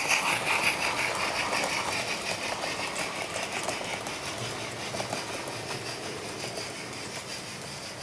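HO-scale model train with a DCC sound-equipped steam locomotive running past. A rhythmic clatter of wheels and engine sound fades steadily as the train moves away.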